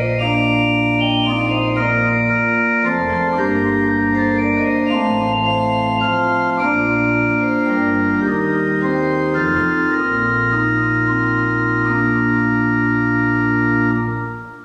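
Organ playing a slow chordal piece, sustained chords over a low bass line. The final chord is held and dies away near the end.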